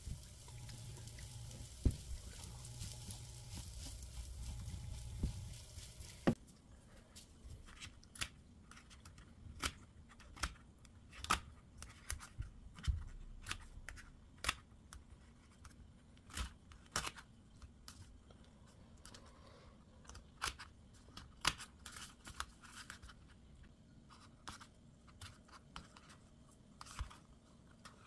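Fried rice sizzling in a nonstick pan while a plastic spatula stirs it. About six seconds in, this gives way to kitchen scissors snipping cubed radish kimchi (kkakdugi) inside a paper cup, with irregular crisp snips, about one or two a second.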